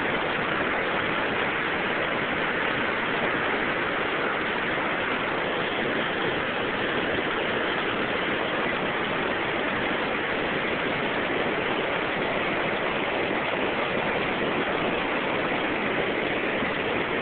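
Floodwater rushing through a swollen creek and out of a culvert, a steady unbroken rush of water.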